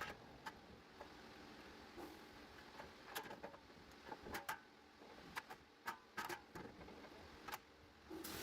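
Scattered light clicks and knocks of tools and parts being handled during a wheel hub bearing job. Just before the end, a steady running noise starts.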